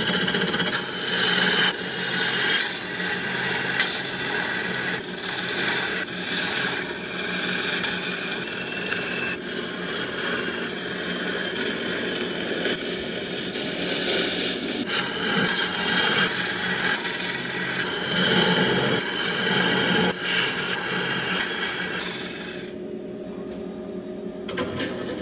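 Wood lathe spinning a large wooden blank while a hand-held turning tool cuts its outside, throwing long shavings: a continuous rough, hissing cut over the lathe's steady motor hum. Near the end the cutting noise drops away, leaving mostly the hum of the lathe.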